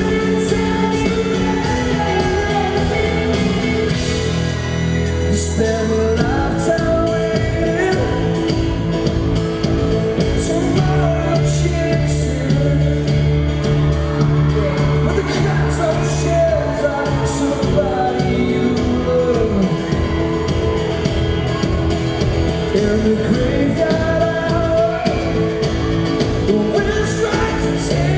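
Live pop-rock band performance: a male lead vocal over strummed acoustic guitar and a full band, with regular percussive hits.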